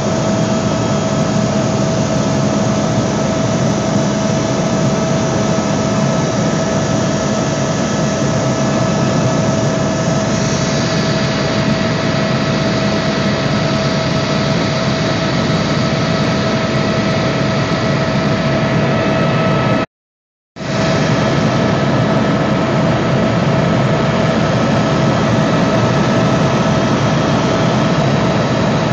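Helicopter cabin noise in flight: a steady engine and rotor drone with a constant high whine. The sound drops out completely for about half a second about two-thirds of the way through.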